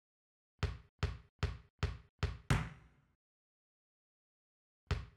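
A row of six sharp knocks, evenly spaced at about two and a half a second, then two more knocks near the end.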